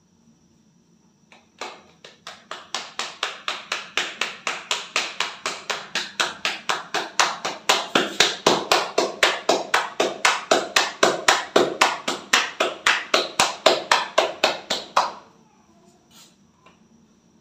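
Hands slapping a ball of dough flat between the palms. A quick, even run of slaps at about four a second starts about a second and a half in and stops sharply about two seconds before the end.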